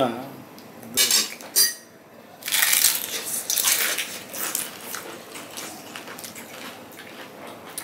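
Crisp fried velpuri shells crunching as two people bite into and chew them. The crunching starts about two and a half seconds in and is loudest for the next two seconds, with a few light clinks of spoons against bowls and plates before it.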